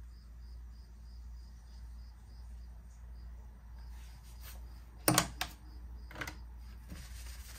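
A felt whiteboard eraser knocking against a dry-erase board several times as it is picked up and set on the board, the loudest knock about five seconds in. Before that, only a faint steady hum with a faint high chirp repeating about three times a second.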